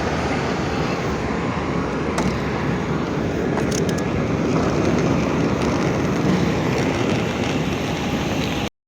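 Airbus A320neo airliner's steady engine and airflow noise heard from inside the cabin, with a few faint clicks. It cuts off abruptly near the end.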